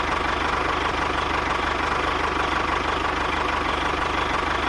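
Tractor diesel engine running steadily, with a rapid, even low chugging and a steady high whine over it.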